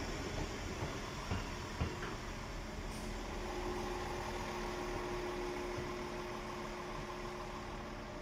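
Passenger train crossing the road at a level crossing: a rumbling pass-by with a few sharp wheel clacks over the rail joints in the first two seconds, then a steady hum as the train moves away.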